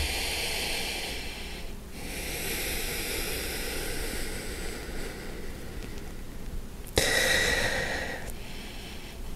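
A man breathing slowly and audibly during a held yoga pose: long, even breaths with a short pause about two seconds in, and a louder, sharper breath starting about seven seconds in.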